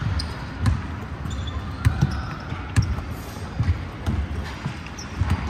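Basketballs bouncing on a hardwood gym floor: irregular low thuds several times a second, mixed with players' footfalls and a few short, high sneaker squeaks.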